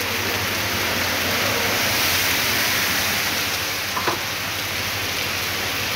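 Heavy rain pouring onto a flooded street as a steady, dense hiss, with car tyres swishing through the standing water.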